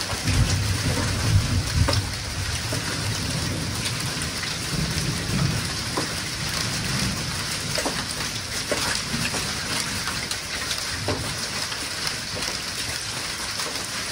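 Hailstorm: a steady hiss of rain with scattered sharp clicks of hailstones striking hard surfaces. A low rumble sits under it in the first couple of seconds and again around five seconds in.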